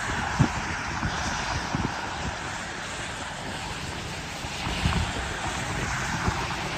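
Wind buffeting the microphone outdoors in a storm: irregular low rumbling thumps over a steady hiss.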